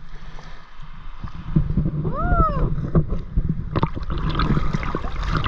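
Water sloshing and splashing close around the camera as a paddleboarder gets into the sea, with a heavy low rumble and scattered knocks. One short cry rises and falls in pitch about two seconds in.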